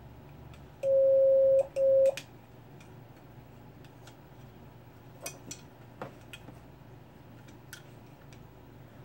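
A megaphone's speaker sounding a loud, steady single-pitch tone twice, in two short bursts about a second in, cutting off abruptly each time as the trigger grip and its wiring are worked. Then a few faint clicks from handling the parts.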